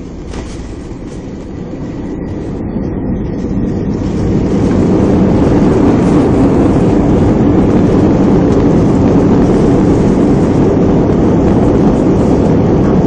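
Airbus A320 landing roll heard from inside the cabin: the jet engines' roar swells over about four seconds and then holds loud and steady, as reverse thrust is applied after touchdown.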